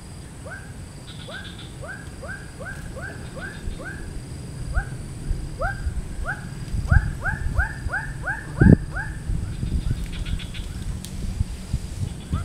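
An animal calling from the swamp: a series of short upward-sliding notes, a few per second, that quicken in the middle and stop about two-thirds of the way through. A dull thump near the end of the calling is the loudest sound.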